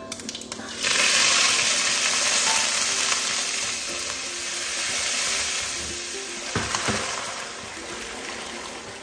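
Tempering sizzling in hot oil in a kadai. Mustard seeds crackle at first, then a sudden loud sizzle about a second in as curry leaves and dried red chillies go into the oil. The sizzle slowly dies down, with a few sharp knocks of a utensil a little after two-thirds of the way in.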